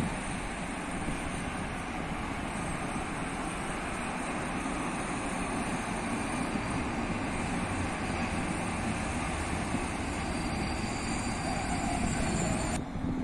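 A train running past on the line, a steady rush and rumble of wheels on rails. The sound changes abruptly near the end.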